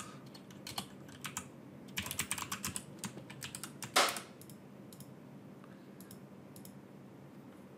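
Computer keyboard being typed on: a run of quick key clicks, with a louder stroke about four seconds in, then a few scattered clicks.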